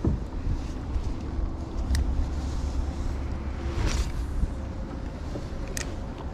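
Wind buffeting the microphone, a steady low rumble, with a few faint light clicks about 2, 4 and 6 seconds in.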